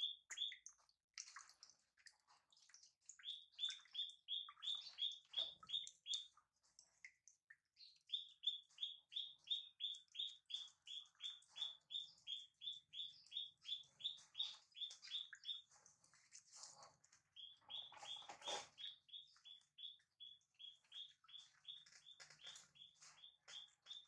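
Long runs of short, high chirping calls from a small animal, about four a second, broken by a few short pauses, with one brief louder noise about eighteen seconds in.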